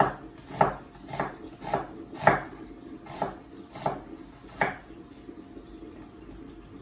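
Chef's knife slicing an onion on a wooden cutting board: about eight crisp knife strikes on the board, roughly one every half second or so, then they stop.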